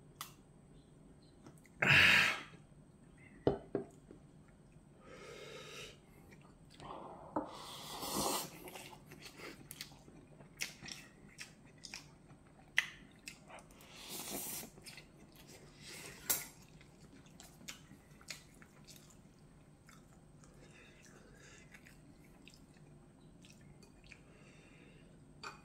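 Close-up eating sounds: chewing instant ramyeon noodles and rice, with sharp clicks of a spoon and chopsticks against ceramic bowls and a louder burst of sound about two seconds in.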